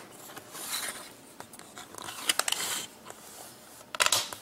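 A cover being pressed into an aluminium LED extrusion and handled: a few short scratchy rubbing sounds and light clicks as it is test-fitted to snap into the channel.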